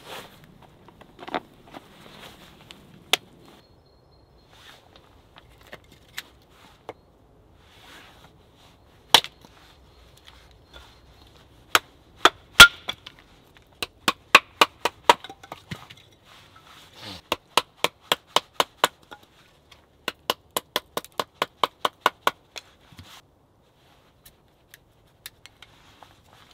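Wooden baton knocking on the spine of a bushcraft knife, driving the blade down through a small stick on a wooden stump to split kindling. A few single sharp knocks, then quick runs of knocks about four or five a second.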